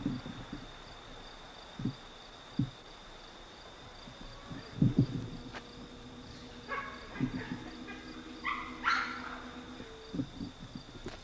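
Steady high-pitched insect chirring, with scattered low thumps and knocks. About two-thirds of the way through there is a cluster of short higher tonal sounds over a faint low hum.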